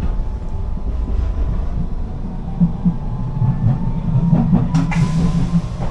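Hiroshima tram running, heard from inside the passenger car: a steady low rumble, with a faint slowly rising motor whine and a few wheel clacks over the rails near the end.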